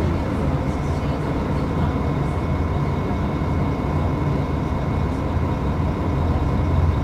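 Mercedes-Benz O500UDA bus's diesel engine running steadily with a deep, even rumble and a faint steady whine above it; the pitch does not rise or fall.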